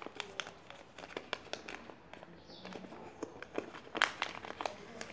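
A sheet of paper being folded and creased by hand, crinkling with irregular sharp clicks, the loudest about four seconds in.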